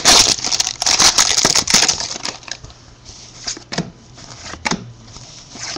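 Foil trading-card pack wrapper crinkling and tearing for about the first two seconds, then scattered sharp clicks and snaps as the cards are handled and flicked through one by one.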